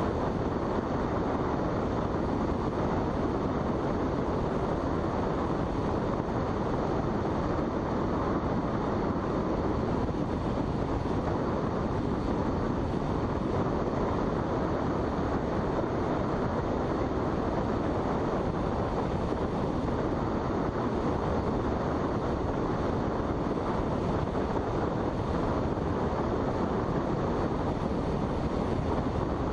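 Steady rushing airflow in a sailplane cockpit in flight, an even noise that holds unchanged throughout.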